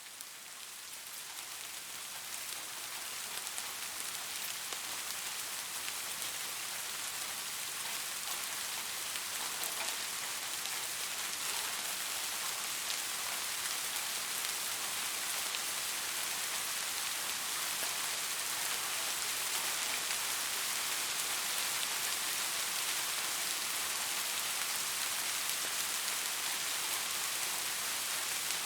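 Steady rain falling, a hissing wash with fine patter of individual drops. It swells up over the first few seconds, then holds even.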